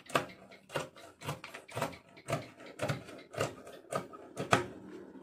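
Fabric scissors snipping through two stacked layers of lace (chantilly under sequined brocade), a short crisp cut about twice a second.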